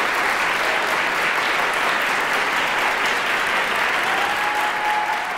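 Audience applauding steadily, starting to taper off near the end.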